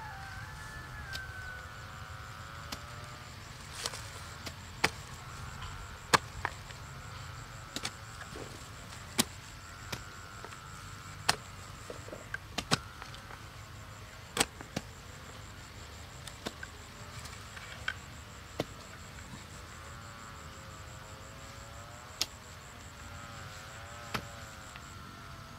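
Sharp knocks, like a blade or tool chopping, at irregular intervals of about one to two seconds, over a faint wavering drone.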